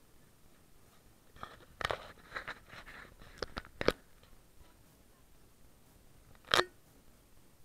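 Crunching and scraping noises close to the microphone: a cluster of short crunches about two to four seconds in, and one more sharp crunch near the end.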